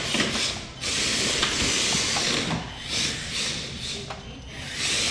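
Air Hogs Hyper Tracks remote-control tracked vehicle's electric drive motors whirring and its plastic treads clattering on a hard wood floor. The whirring comes in spurts that stop and start every second or two as the vehicle is driven.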